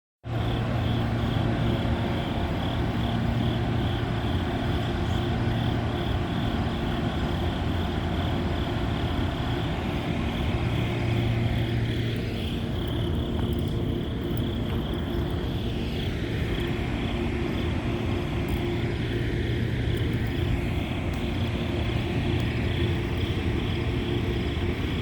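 Amtrak P42DC locomotive's V16 diesel engine running steadily, with a constant low hum and overtones.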